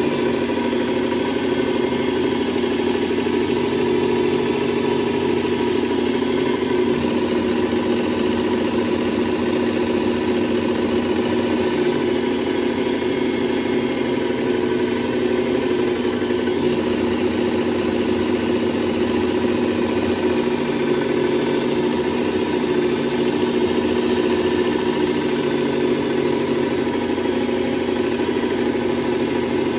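Work Sharp electric belt sharpener running steadily with a constant motor hum, while the bevelled edge of a steel paper-cutter blade is ground on its abrasive belt; the grinding hiss shifts every few seconds as the blade is moved along the belt.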